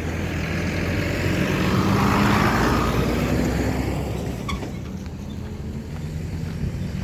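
A motor vehicle driving past on the road. Its engine and tyre noise build to a peak two to three seconds in, then fade away.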